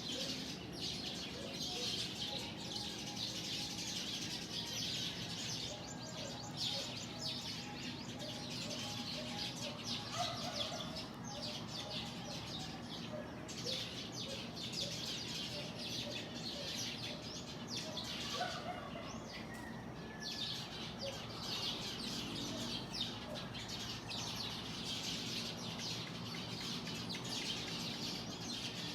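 Many small birds chirping at once in a dense, continuous dawn chorus, their short calls overlapping.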